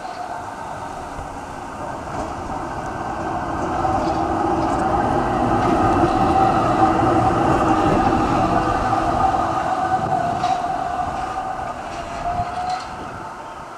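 Melbourne Z-class tram running past on curved track with a steady whine. It grows louder as it comes close, then fades as it moves away.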